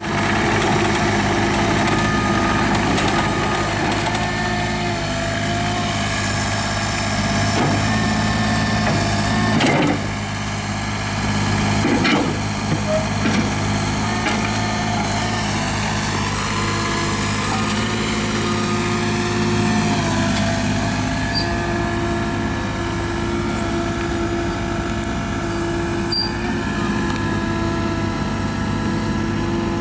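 Kubota U-30 mini excavator's diesel engine running steadily under load, with whining tones that come and go and shift in pitch as the hydraulics work the boom, arm and bucket. A few knocks sound about a third of the way in.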